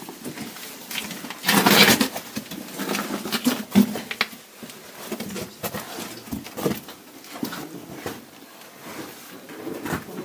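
People clambering through a cave passage: irregular scuffs, knocks and rustles of feet, clothing and gear against rock, with a louder scraping rustle about one and a half seconds in.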